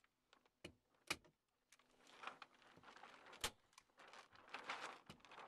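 Reflective radiant-barrier foil crinkling and crackling as it is handled and pressed against the trusses, with a few sharp snaps of a manual staple gun driving staples.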